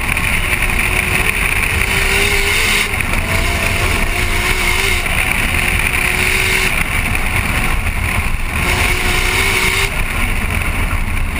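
Nissan Skyline GT-R R34's tuned RB26DETT twin-turbo straight-six driven hard at speed, its pitch climbing and breaking off several times through the gears. Heavy wind buffeting and tyre roar on a microphone mounted low on the car's side.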